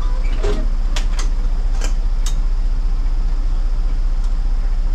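City bus engine idling with the bus standing still, a steady low rumble, with a few sharp clicks from the cab.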